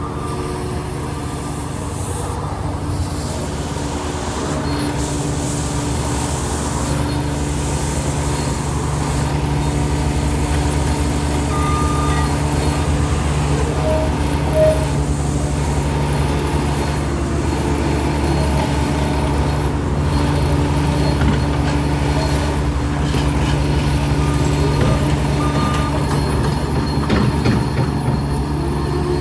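Road roller's diesel engine running steadily under load, a constant low drone that grows gradually louder.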